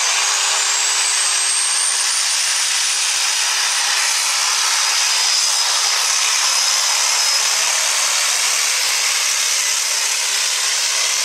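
Super stock diesel 4x4 pickup pulling the sled at full power: a loud, steady engine and turbocharger scream, with a high whistle that rises in pitch over the first couple of seconds and then holds.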